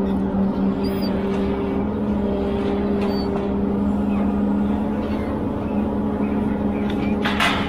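Ponsse Elephant forwarder's 286 hp diesel engine running at a steady pitch while its loader crane swings. A short clatter near the end.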